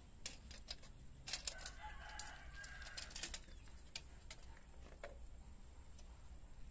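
A rooster crowing once, faintly, from about a second in to about three seconds in, with scattered light clicks from a tape measure being handled against a wall.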